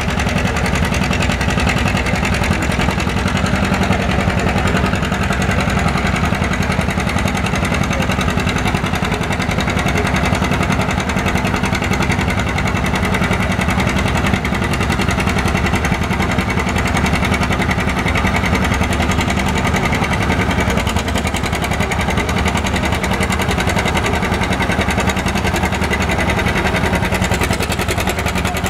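John Deere two-cylinder tractor engine running steadily and loud, labouring under heavy load as it drags a weight-transfer pulling sled.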